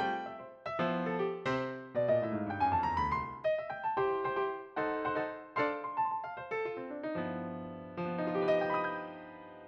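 Background music: a light electric-piano tune of short struck notes with a quick rising run about two seconds in, ending on a held chord that fades away.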